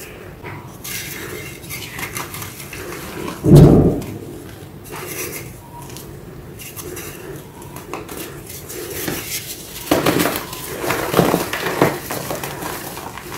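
Reformed gym chalk blocks filled with black paste being crushed and crumbled by hand, giving dry crunching and crumbling. A loud low thump comes about three and a half seconds in, and a run of sharper crunches follows near the end.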